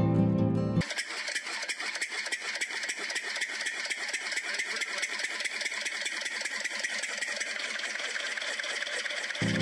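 The small motor of a miniature model water-pump engine running steadily, with a fast, even rattle as its flywheel turns the belt-driven pump. Music cuts out about a second in and returns near the end.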